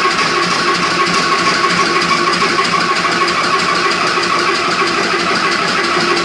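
Crossley OE1 single-cylinder oil engine running steadily, with a constant high tone through its running noise.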